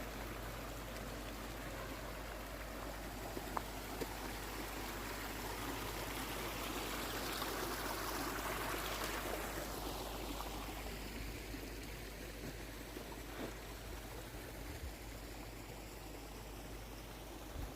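Rushing water of a mountain stream, growing louder toward the middle and fading again as it is passed.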